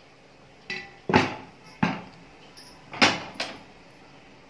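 A wooden stirring stick and a steel bowl knocking against an aluminium pot of jaggery syrup: about five sharp, irregular clanks, each ringing briefly.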